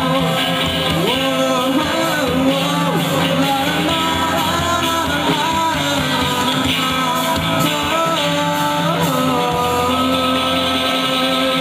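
Live rock band playing, with electric guitars and singing; held low chords drop away about a second in and come back near the end.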